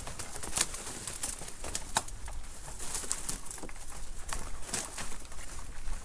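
Footsteps on ice: boots crunching, with the ice cracking underfoot in irregular sharp snaps.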